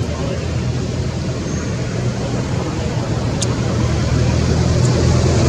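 A steady low motor rumble that grows slightly louder toward the end, with a single sharp click about three and a half seconds in.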